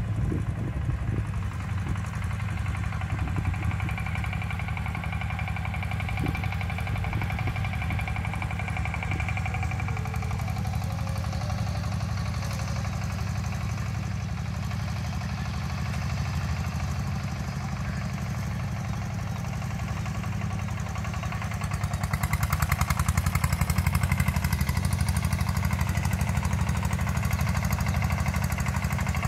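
Tractor engine running steadily as the tractor works the tilled field, with a fast, even thudding beat. It gets louder about three quarters of the way through.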